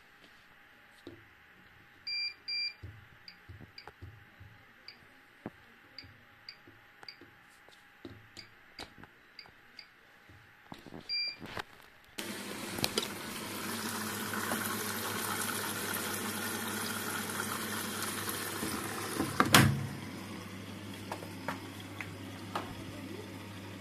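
Siemens WM14N2L3 front-loading washing machine: its control panel beeps over and over as the programme and options are set, then about halfway through, water starts rushing in loudly to fill the drum. A knock comes near the end of the rush, after which it drops to a quieter steady sound with a low hum.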